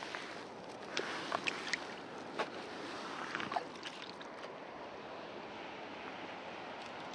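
Steady wind noise on the microphone, with a handful of sharp, irregular clicks and rustles in the first four seconds as fly line is pulled off the fly reel by hand.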